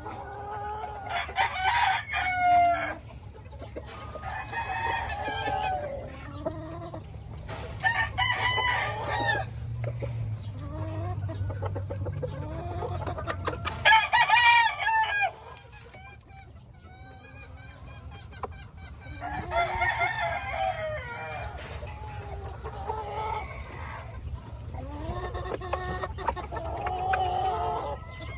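Gamecock roosters crowing again and again, a crow every few seconds, some of them overlapping, with a quieter gap of a few seconds about halfway through.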